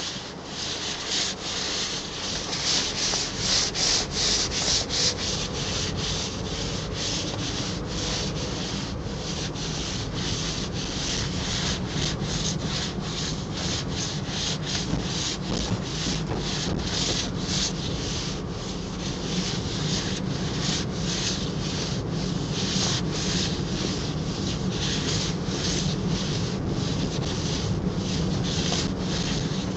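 Shiny PVC rain suit rubbing and rustling in quick, uneven strokes as the wearer moves, over a steady low hum of a car being driven.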